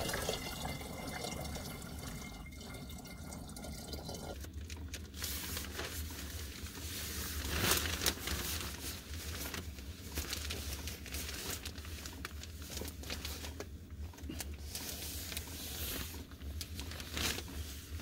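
Hot water being poured into a pump-shower tank for about the first four seconds, then a stretch of rustling and small knocks.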